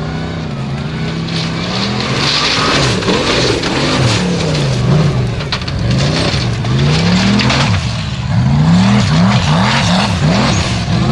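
Formula Offroad buggy's engine revving hard, its pitch rising and falling over and over, then in quick rises and falls about twice a second from about eight seconds in, over a steady rushing noise.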